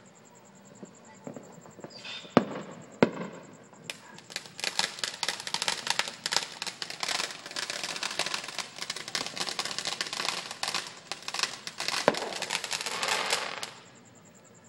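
Ground-level fireworks going off: two sharp bangs, then about ten seconds of dense, rapid crackling and popping. One louder bang comes near the end, and then it stops abruptly.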